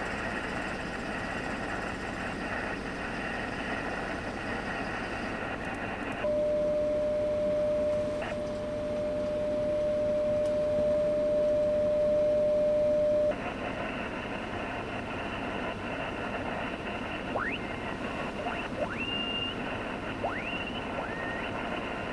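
Mobile HF transceiver's speaker hissing with band noise on 20 metres. About six seconds in, the hiss gives way to a single steady tone for about seven seconds, then the hiss returns. Near the end, a few short whistles rise in pitch.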